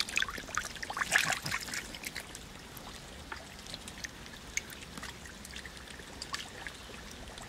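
Shallow muddy water trickling, with many small splashes and wet pops, busiest about a second in and then scattered.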